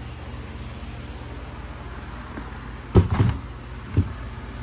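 A brief clatter of knocks about three seconds in and a single knock a second later, over a steady low hum.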